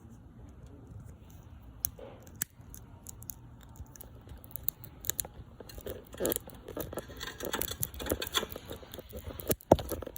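Steel cable lock being cut, its wire strands snapping one by one as little ticking sounds. The ticks come sparsely at first, then thicker and louder in the second half, with one sharp snap near the end.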